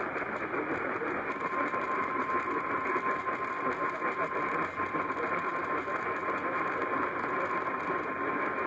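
Weather radio warning alarm tone: a single steady high tone, starting about a second in, over loud radio static hiss. It is the alert tone that sounds ahead of a broadcast warning, here a tornado warning.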